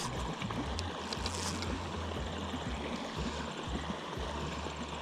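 A small stream running over a shallow riffle, with wind buffeting the microphone in a low, uneven rumble. Faint high-pitched trills repeat in the background.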